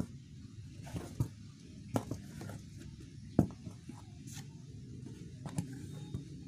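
Canvas sneakers with rubber soles handled and shifted on cardboard: a few short sharp taps and knocks, the loudest about three and a half seconds in, over a steady low background rumble.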